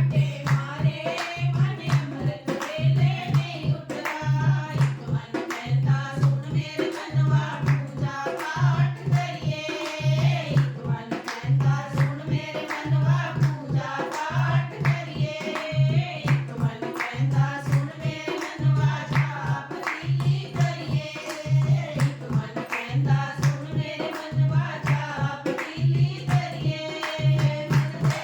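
Punjabi devotional bhajan sung by a group, over a steady, evenly repeating drum beat.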